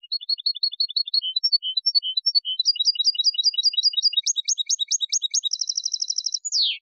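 European goldfinch singing one phrase of Málaga-style contest song: runs of quick repeated chirping notes that change pattern every second or so, then a fast trill near the end, closing on a single note that falls in pitch.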